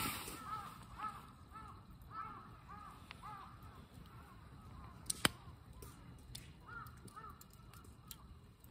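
A flock of waterfowl honking: many short, overlapping calls, each rising and falling in pitch, dense for the first few seconds, thinning out, then a few more near the end. A single sharp click about five seconds in.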